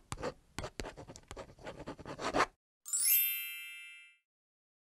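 Pen-scratching sound effect, a run of quick scribbling strokes that stops about two and a half seconds in. A bright chime of several high tones then rings out and fades over about a second.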